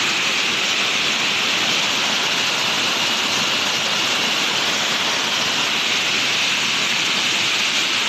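Waterfall pouring down a sloping rock face into a pool: a steady rush of water.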